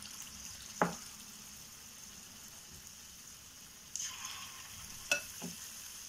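Batter-coated boneless chicken pieces deep-frying in hot oil in a pan, sizzling steadily; the sizzle flares up about four seconds in as another battered piece goes into the oil. A metal spoon clinks sharply a few times, loudest about a second in.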